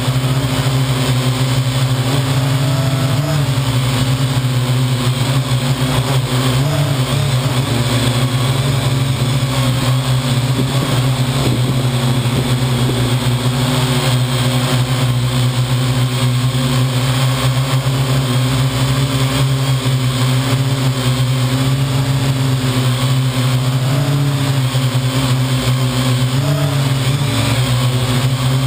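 Parrot AR.Drone quadcopter in flight, its four rotors buzzing loudly and steadily, heard close up from a camera on the drone itself. The low hum's pitch wavers slightly a few times.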